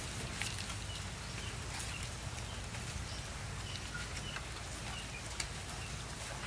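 Outdoor ambience with small birds chirping briefly every second or so, and a few sharp scrapes of a cleaver shaving the skin off a pineapple.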